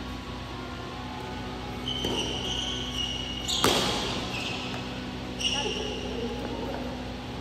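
Badminton rally on an indoor court: a sharp racket strike on the shuttlecock about three and a half seconds in, the loudest sound, echoing in the hall. Shoes squeak high on the court floor just before the strike and again about two seconds after it.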